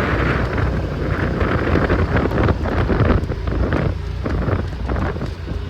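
A vehicle engine running under heavy wind buffeting on the microphone while riding along.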